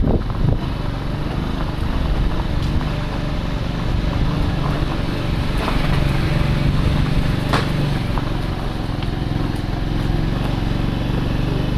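Small motorcycle engine running steadily while riding down a rough dirt track, with a few sharp knocks from the bike jolting over the ground, the loudest about seven and a half seconds in.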